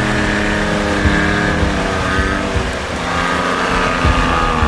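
Jeep Wrangler's engine labouring through deep mud, its note sagging, then rising again under more throttle about three seconds in, and dropping near the end.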